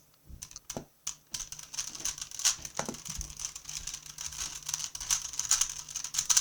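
A Rubik's-brand 3x3 Rubik's Cube being turned fast in a speedsolve: rapid plastic clicking and clacking of the layers, picking up after a brief lull about a second in.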